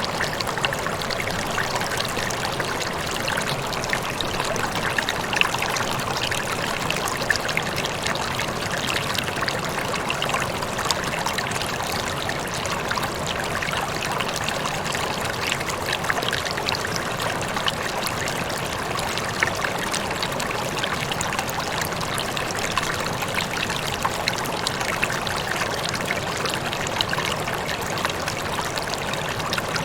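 Running water rippling and trickling in a steady, even babble, flecked with many small splashes and drips.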